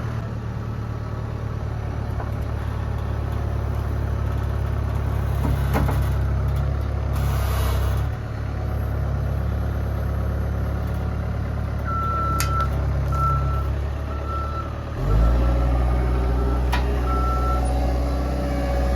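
Concrete mixer truck's diesel engine running steadily. Late on it revs up and holds there, with a string of short beeps, like a reversing alarm, sounding around the same time.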